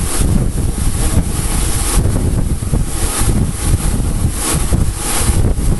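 Lit oxy-fuel cutting torch flame, hissing loudly and steadily.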